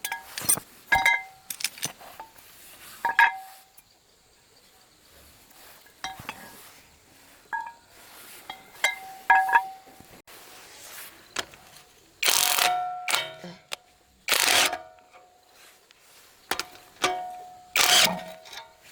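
Metal parts clinking and ringing as they are handled and knocked together, each strike ringing at the same few pitches, with several longer scraping bursts in the second half.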